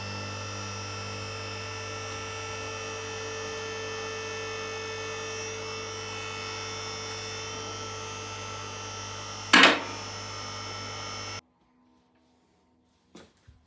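Electric-hydraulic pump motor of a two-post car lift running steadily as it raises the car, with one sharp metallic clank about nine and a half seconds in. The sound cuts off suddenly near the end.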